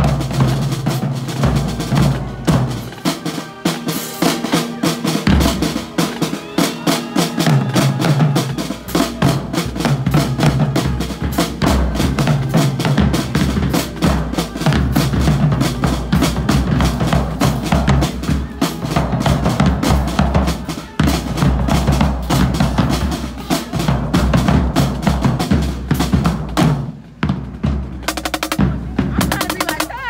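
Marching-band drumline of snare drums, bass drums and crash cymbals playing a fast, loud cadence with rolls, with a short break near the end.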